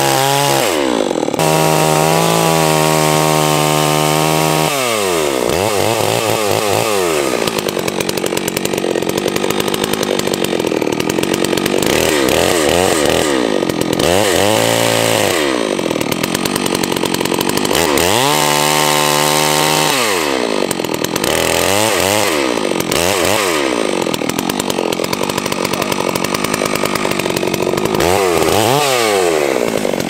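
Holzfforma G660, a roughly 92 cc two-stroke clone of the Stihl 660, running loud at high revs as it cuts into a standing tree. Its engine pitch drops away and climbs back several times as the throttle and the load in the cut change.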